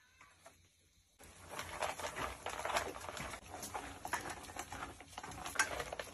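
Stainless-steel pet bowls clinking and scraping as canned wet pet food is stirred into them: a dense run of small clicks, scrapes and wet squishes starting about a second in.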